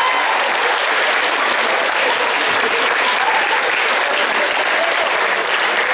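Audience applause, dense and steady, after a comedy punchline.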